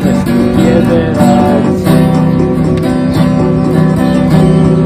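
Acoustic guitar music: strummed chords with no singing.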